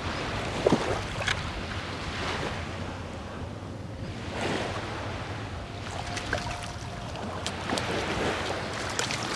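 Shallow bay water sloshing and splashing, with wind buffeting the microphone and scattered small splashes.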